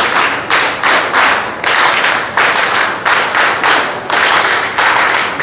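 Audience applause in a hall, the clapping falling into a steady rhythm of about three beats a second.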